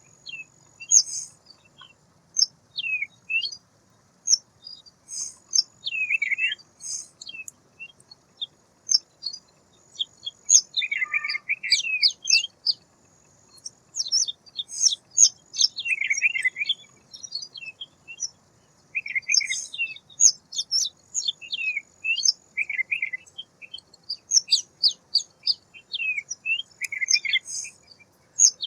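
Songbirds chirping and calling in quick, varied bursts of short high notes and trills, some sliding in pitch, with brief pauses between clusters.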